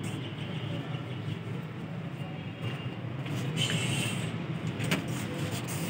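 Steady low outdoor background rumble, like distant traffic, with a brief faint high sound a little after halfway and a click near the end.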